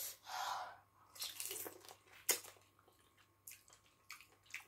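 Close-up eating sounds of crab in fisherman soup: a short wet slurp at the start, then soft wet smacks and small clicks as the crab is handled and sucked, with one sharp crack about two seconds in.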